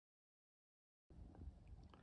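Dead silence for about the first second, then faint outdoor background noise: a low rumble with a few light ticks.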